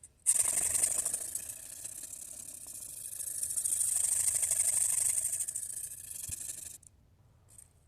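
Carbon-steel knife edge ground on a slurry-covered Shapton Glass 500 whetstone at a steep angle, a steady high scraping that grinds out chips in the edge. The grinding stops briefly near the end, then starts again.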